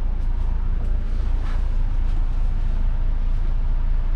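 Mercedes-Benz OC500RF coach idling while parked, a steady low rumble heard inside the passenger cabin.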